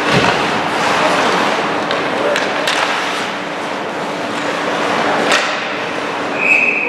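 Ice hockey game in an arena: a steady din of skates on ice and crowd murmur, with a few sharp clacks of sticks and puck. A steady high whistle blows near the end, the referee stopping play.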